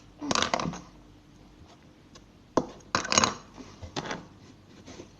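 Plastic toy cutlery and a plastic bowl clattering as they are handled and set down: several light clacks and clinks, a few in quick succession.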